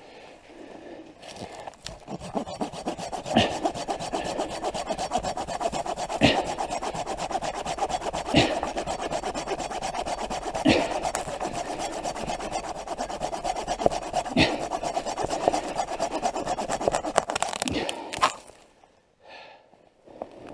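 Hand saw cutting through dead wood, a steady rasping of sawing that starts about two seconds in and stops a couple of seconds before the end.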